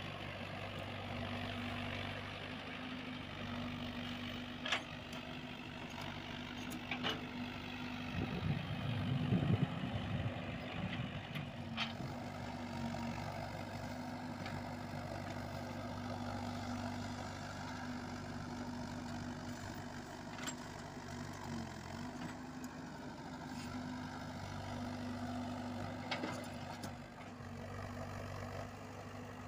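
Komatsu PC78UU mini excavator's diesel engine running at a steady pitch while digging, with a few sharp knocks and a louder low rumble about nine seconds in.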